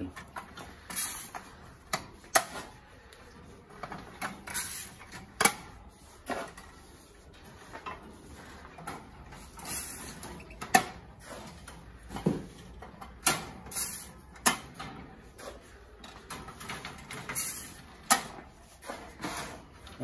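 Clear plastic seed trays clicking and rattling against the wire fronts of canary cages as they are lifted off and hooked back on, in scattered sharp knocks with quieter handling noise between.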